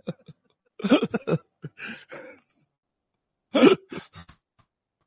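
Short non-speech vocal sounds from people in a small room, in three brief clusters with gaps between them.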